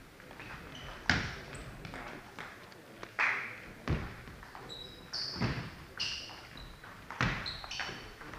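Table tennis play: sharp knocks of the ball off bats and table a second or two apart, with shoe squeaks on the wooden sports-hall floor.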